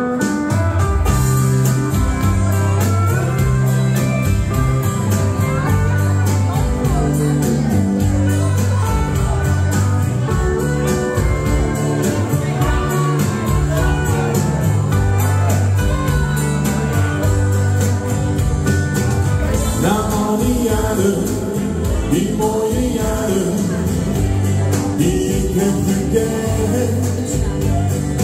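A man singing live into a microphone over music with a steady beat and a repeating bass line, played through the café's sound system.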